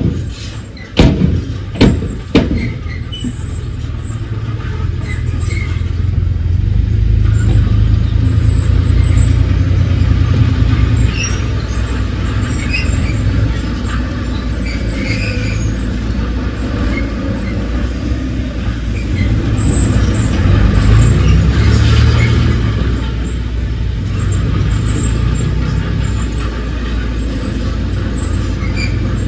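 Heavy earthmoving machinery's diesel engine running steadily under changing load, rising in pitch and loudness about twenty seconds in. Three loud knocks come in the first two seconds or so.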